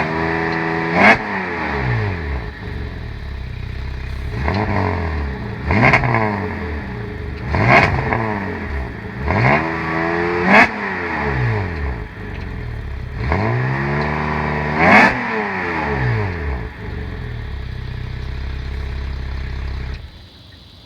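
LFX 3.6-litre V6 with a resonator- and cat-deleted exhaust, revved about six times; each rev rises and falls, with a sharp crack at the top. It then settles to a steady idle, and the sound drops away sharply near the end.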